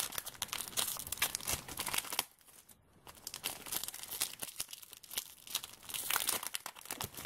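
A trading-card pack's wrapper being torn open and crinkled by hand, dense crackling and tearing with a short pause about a third of the way through.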